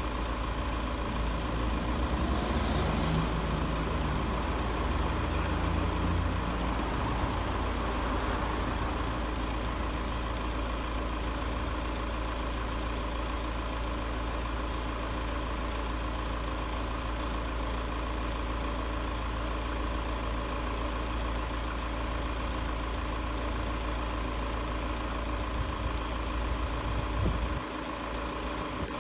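MAN TGE 3.140 van's four-cylinder turbodiesel idling steadily, with the low rumble thinning out near the end.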